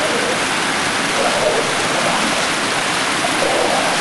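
Steady rush of water running down a steep paved street, water released from a channelled mountain stream to wash it, with stiff push brooms scrubbing the wet surface.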